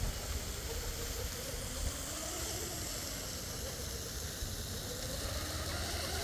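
Faint, distant whine of an RC catamaran's 2948 brushless motor as the boat runs at speed and turns, over a steady background rush.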